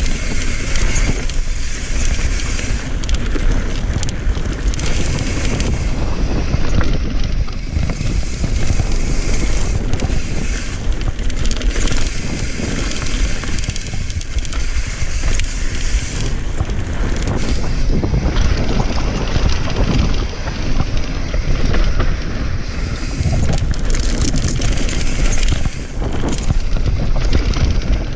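Wind buffeting the microphone over the steady rumble of mountain-bike tyres on a rough dirt trail, with frequent knocks and rattles from the bike over bumps.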